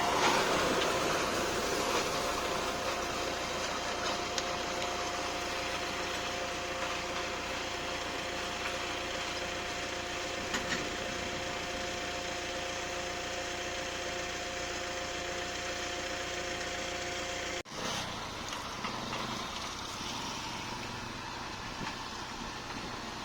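Tractor engine running steadily with PTO-driven farm machinery, carrying a steady high hum. The sound breaks off abruptly about eighteen seconds in, and a slightly quieter engine sound carries on.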